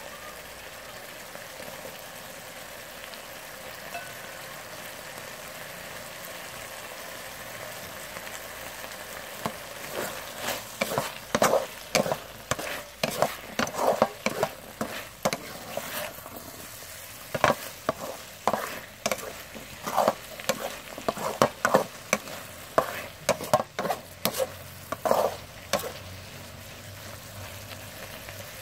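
Corn kernels with minced pork and carrot sizzling in a metal wok. From about ten seconds in until a few seconds before the end, a wooden spatula scrapes and tosses the food against the wok in a run of quick, loud strokes.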